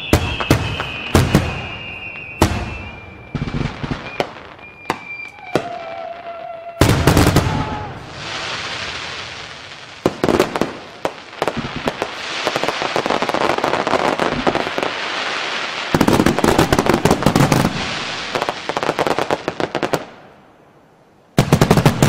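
Aerial fireworks display: shells bursting with sharp bangs and dense crackling, with a falling whistle at first. The crackling thickens after about eight seconds, dies away near the end, then returns in a short burst of bangs.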